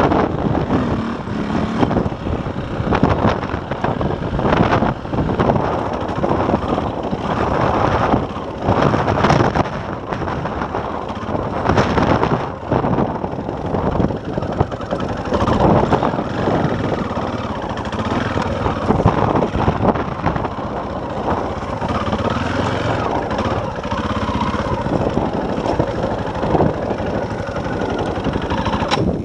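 KTM enduro bike's single-cylinder four-stroke engine running under load while ridden over rough, bushy ground, the revs surging and dropping again and again.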